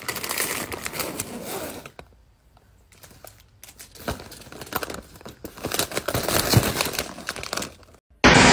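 Plastic wrapper of a Chips Ahoy! cookie package crinkling and tearing as a hand rips it open and peels it back, in two spells of rustling with a quieter pause between them. Near the end it cuts off, and a loud steady noise begins.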